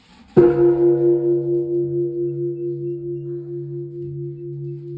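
Large Japanese temple bell (bonshō) struck once about half a second in, then ringing on in a long, low hum that fades slowly and pulses in loudness.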